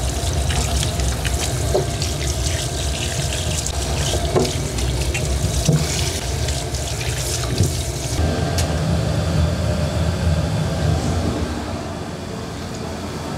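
Tap water pouring into a stainless steel sink over raw pig's trotters as gloved hands scrub them, with sloshing and splashing against the meat. A steady low rumble runs underneath.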